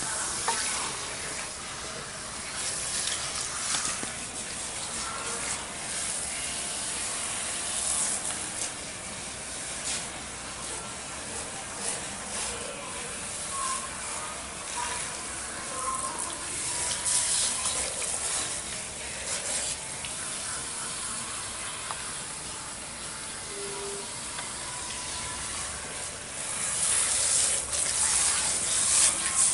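Handheld salon shower sprayer running water over hair into a shampoo basin: a steady hissing spray that grows louder near the end.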